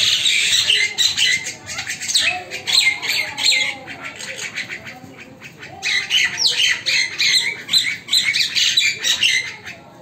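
Common mynas fighting, giving a dense stream of harsh, scratchy squawks and screeches. The racket eases off for a couple of seconds in the middle, then comes back as loud before tailing off near the end.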